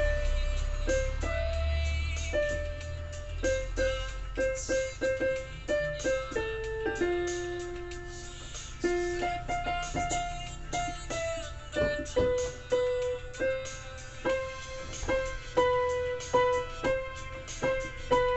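Portable electronic keyboard played with both hands: a tune of separate notes over lower held notes. In the second half the notes come in a steadier, repeated pattern.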